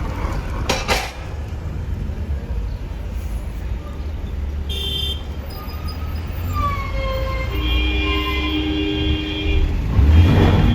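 Road travel noise: the low rumble of a moving vehicle. Horns toot over it: a short toot a little before halfway, then a falling tone and, in the last few seconds, a steady held horn.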